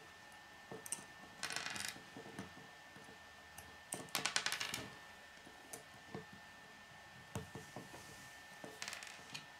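Small hard plastic K'nex pieces clicking and rattling as they are handled and fitted together, with scattered single clicks and two bursts of rapid clicking, about a second and a half in and about four seconds in, and a shorter burst near the end.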